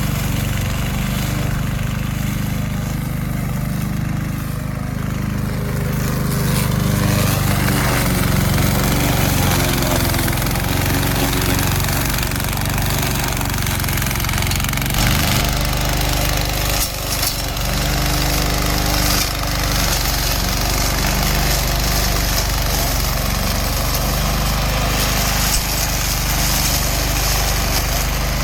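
Remote-control lawn mower running steadily, with a continuous engine hum.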